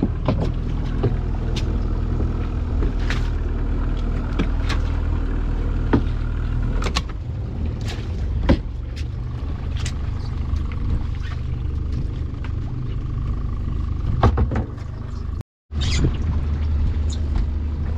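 A small boat's motor running steadily, with occasional knocks and clicks.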